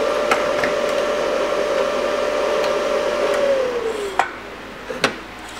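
An electric fan runs with a steady whine, then winds down and fades about three seconds in as its power is cut. Near the end come a couple of sharp clicks.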